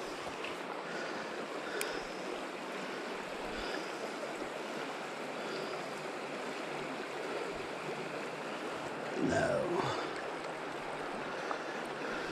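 Shallow, rocky stream flowing, a steady rush of water. A faint click comes near two seconds in, and a short sound with a wavering pitch about nine seconds in.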